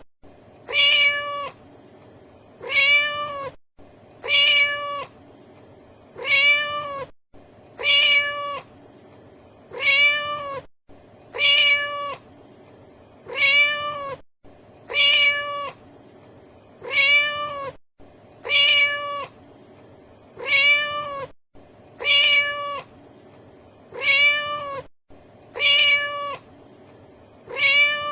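Domestic cat meowing: the same short meow, arching up and down in pitch, repeated over and over at an even pace of roughly one every two seconds, like a looped sound effect.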